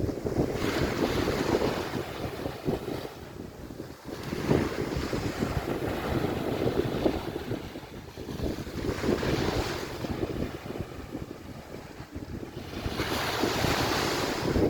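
Waves washing onto a sandy beach, surging and falling back about every four seconds, with wind buffeting the microphone.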